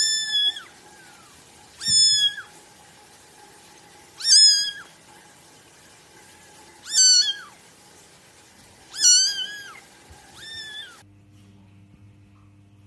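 A cat meowing six times, about every two seconds, each a short high call that holds its pitch and then drops at the end; the last is fainter. About eleven seconds in it cuts to a steady low hum.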